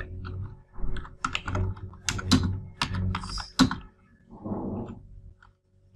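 Typing on a computer keyboard: a quick run of keystrokes for the first three and a half seconds, then a short, softer noise about four and a half seconds in.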